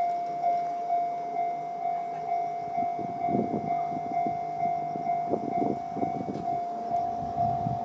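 Japanese level-crossing warning bell, the electronic JR East-type tone, ringing a steady pulsed ding about twice a second. Irregular low rumbling lies underneath.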